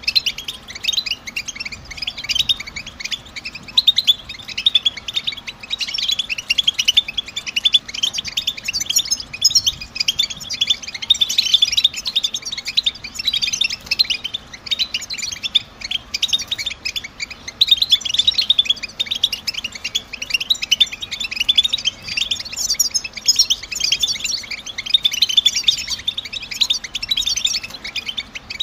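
European goldfinch chattering calls: a fast, unbroken stream of high twittering chirps. This is the stimulating 'betbeta' call that keepers play to spur a caged goldfinch into song.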